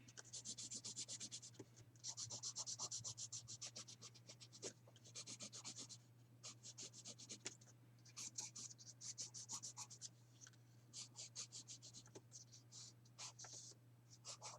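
Faint scribbling of a drawing tool on paper: runs of quick back-and-forth colouring strokes, about ten a second, broken by short pauses, over a steady low hum.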